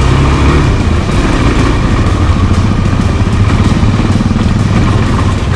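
Off-road adventure motorcycle engine running at steady low revs while ridden slowly over rough trail.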